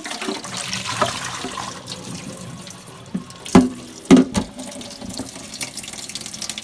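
Water running and sloshing as a cool mist humidifier is swished and rinsed out in a sink, clearing it of descaling vinegar. Two loud knocks come about halfway through.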